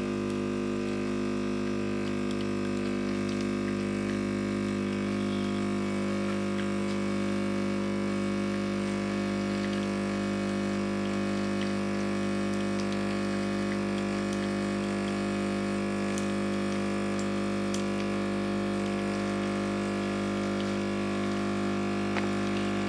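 Espresso machine pulling a shot, its pump giving a steady, even hum throughout.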